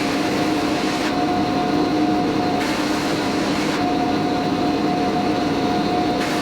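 Panel sander running with a steady hum while surfacing epoxy-and-walnut panels. A sanding hiss rises three times, about a second each, as the panel passes under the belt.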